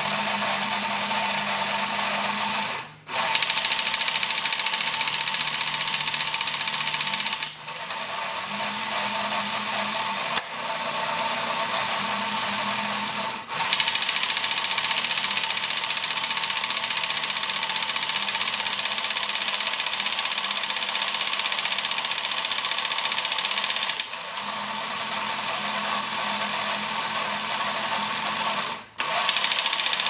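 Small electric motor and plastic gears of a battery-operated remote-control toy Aston Martin whirring steadily as they drive the car's actions. The motor cuts out for a moment several times, about three, seven and a half, thirteen and a half and twenty-nine seconds in, then starts again.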